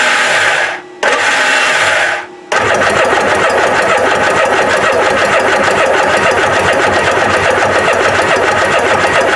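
Starter motor cranking a 2002 Kawasaki ZXi 1100 jet ski's three-cylinder two-stroke engine, which turns over but does not fire because it has no spark. There are two short cranks of about a second each, then a steady long crank from about two and a half seconds in.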